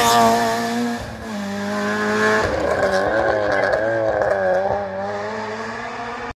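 Rally car engine pulling hard away from the corner, changing gear about a second in and climbing in pitch again after the shift. The sound cuts off suddenly near the end.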